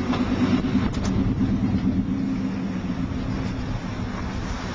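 Car engine and road noise heard from inside a moving car: a steady low hum, with a couple of faint clicks about a second in.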